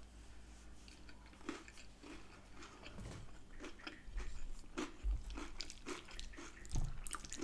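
A person eating close to the microphone: wet chewing with irregular crisp crunches, typical of biting into toasted garlic bread, and a couple of dull low knocks about five and seven seconds in.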